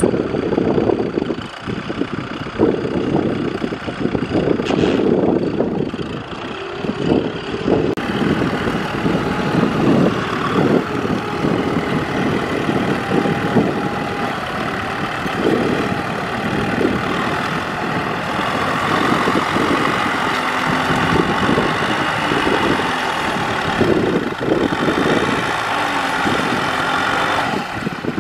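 Kubota M6040SU tractor's diesel engine running steadily under load as it drives through deep mud.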